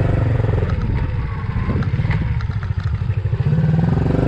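A small motorbike running as it is ridden along, a steady low engine note with a few light clicks and rattles.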